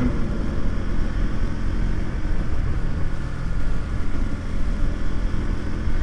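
KTM Duke motorcycle running at a steady cruising speed while being ridden, a constant low engine rumble with no change in revs.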